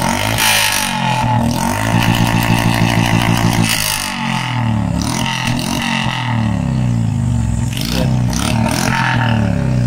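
Royal Enfield Classic 350 Reborn's single-cylinder engine with a short-bottle aftermarket silencer, revved up and dropped back several times while the bike stands still.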